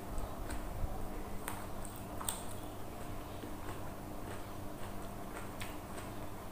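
Close-up eating sounds: chewing a hand-fed mouthful of rice and sambal, with irregular soft mouth clicks and smacks, over a steady low hum.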